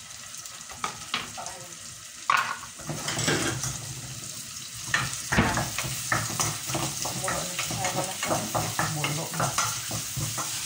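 Onion, garlic and ginger sizzling in oil in a nonstick frying pan, sautéed as the base for chicken tinola. Early on a few knocks and scrapes as the chopped garlic and ginger are pushed off a cutting board into the pan, then from about halfway a wooden spatula stirring and scraping the pan in quick strokes.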